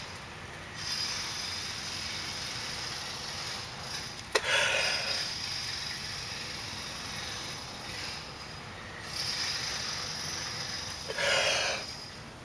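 Long breaths blown into a smoking bundle of pine-needle tinder to coax a friction-fire coal into flame. The breathy hiss runs nearly throughout with a brief pause about eight seconds in, and there are stronger blows about four seconds in and near the end. A single sharp click comes about four seconds in.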